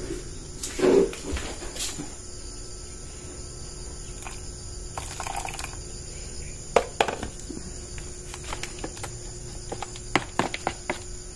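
Water trickling from a plastic bottle into hotcake batter in a plastic tub, then a spoon clicking against the tub as the batter is stirred, in quick small taps near the end. Crickets chirr steadily underneath.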